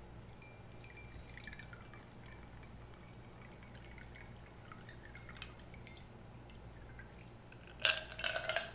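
Stirred cocktail poured from a glass mixing glass through a strainer into a cocktail glass: a faint trickle and drips. Near the end comes a short burst of ringing glassy clinks as the ice and strainer settle in the mixing glass when it is tipped back up.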